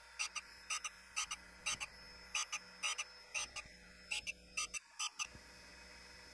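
Surface grinder running with a steady hum, overlaid by a quick series of short raspy ticks, about three or four a second and often in pairs, that stop about five seconds in.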